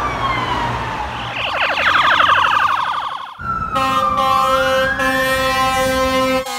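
Fire department emergency-vehicle sirens: an electronic siren wail falls in pitch, then switches to a rapid yelp. After a sudden cut, a fire truck's air horn blares steadily while a siren wail rises in pitch.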